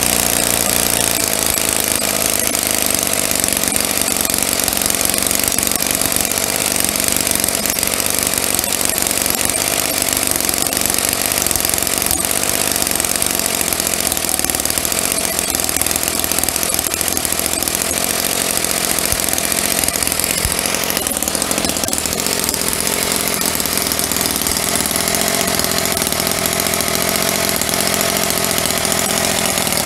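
Enjomor Whippet 10cc single-cylinder side-valve glow-plug engine running steadily on glow fuel. Its note shifts about two-thirds of the way through.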